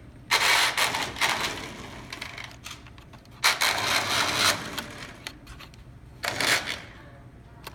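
Vengeance toy RC car's small electric drive motor and gears whirring in three bursts as it is driven by remote: a long one of about two seconds, a second of about a second, and a short one near the end.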